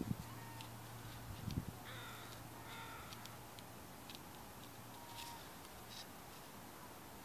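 A bird calling a few times, short bending call notes about two to three seconds in and one more faint call near five seconds, over a quiet outdoor background. There is a low thump right at the start and another about a second and a half in.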